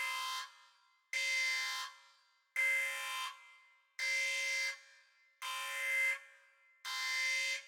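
An electronic alarm buzzer sounding in repeated blasts, about one every second and a half, each a harsh buzzing tone that starts abruptly and trails off with a short echo.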